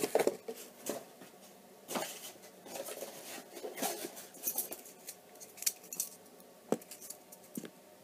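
Hands unpacking and handling small objects: irregular light rustling and scraping with scattered sharp clicks and knocks, the sharpest a little before seven seconds in.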